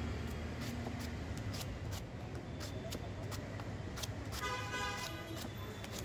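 Knife chopping and shaving the husk of a young green coconut, with sharp chops coming irregularly, a few a second, over steady street-traffic rumble. A vehicle horn honks briefly about four and a half seconds in.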